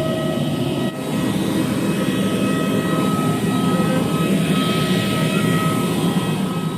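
Airliner engines running steadily: a loud, even rush of noise with constant whining tones on top, dipping briefly about a second in.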